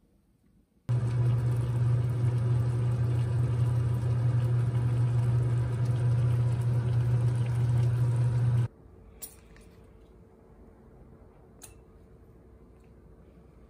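Steady rushing kitchen noise with a strong low hum as a pot of ramen with kimchi dumplings cooks on a gas stove, starting abruptly about a second in and cutting off abruptly after about eight seconds. Faint room tone with two light clicks follows.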